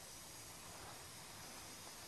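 Faint steady hiss from a homemade denatured-alcohol jet stove made from a pellet tin, burning under a pan.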